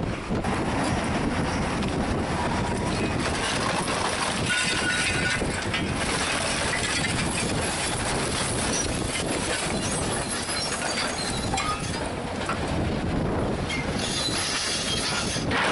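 Volvo excavator with a Gipokombi RC 130 hydraulic grapple working a pile of broken concrete blocks: the diesel engine runs steadily under the clatter and grinding of concrete, with short high metallic squeals from the grapple and scraping steel.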